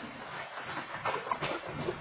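Freight train of coal hopper cars rolling past: a steady rumble of wheels on rail with irregular clicks and short squeaks, heard through a security camera's microphone.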